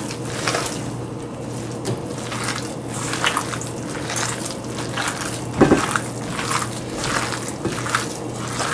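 Bare hands squeezing and kneading a wet mix of ground pork, egg, soaked bun and onion in a stainless steel bowl: irregular squelching and squishing, with a louder thump about five and a half seconds in.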